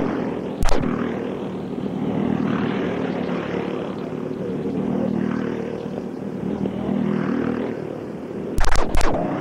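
Several small 5 hp go-kart engines running around a dirt oval, their drone swelling and fading as karts pass. A few sharp clicks, the loudest two near the end.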